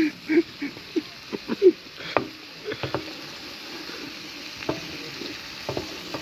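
Chicken livers sizzling in a wide pan while a wooden spatula stirs them, scraping and knocking against the pan. The knocks come thick and fast for the first two seconds, then thin out to a few over a steady sizzle.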